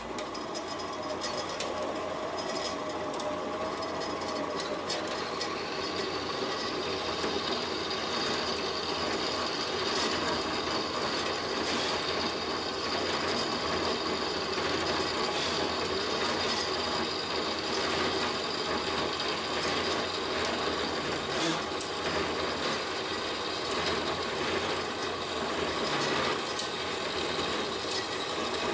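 Vertical bandsaw running steadily, its blade cutting through an aluminium soft-jaw blank fed by hand, with a faint ticking over the steady cutting noise.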